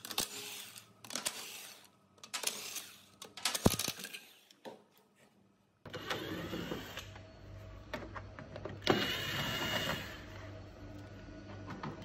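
Cordless impact wrench rattling in several short bursts as it undoes the wheel bolts. Then a cordless driver runs in bursts as it backs out the screws holding the inner wheel-arch liner.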